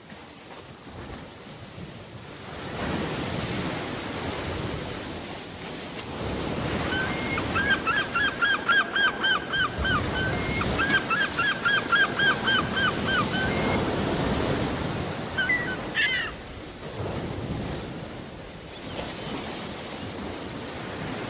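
Sea surf washing in waves, rising from faint to full about three seconds in. Over it a bird calls in two quick runs of short notes, about four a second, and gives one rising call a few seconds later.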